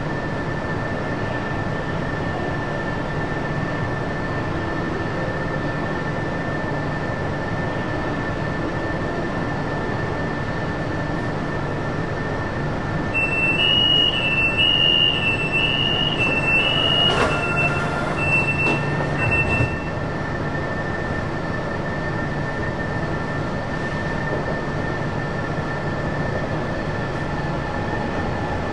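Fuzhou Metro Line 4 train running through a tunnel: a steady rumble of wheels on rail with a constant high whine. About halfway through, a loud high-pitched wheel squeal steps back and forth between two close pitches for several seconds, with a single knock in the middle of it.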